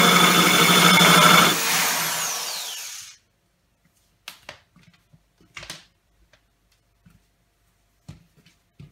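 Handheld rotary tool with a diamond tip bit grinding into thick aquarium glass, a steady whine that is switched off about a second and a half in and spins down, its pitch falling, to a stop about three seconds in. A few faint clicks follow.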